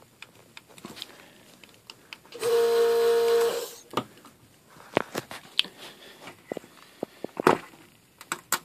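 A vacuum desoldering iron's pump runs steadily for about a second and a half, sucking the solder off a capacitor's leads. From about four seconds in come sharp clicks and tearing crackles as the leaked electrolytic capacitor is worked free of the hardened glue holding it to the board.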